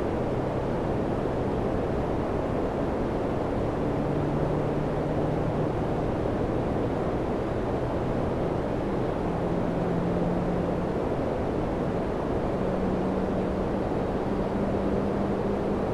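Samsung air conditioner running: a steady rushing of air with a low hum underneath that steps up in pitch a few times.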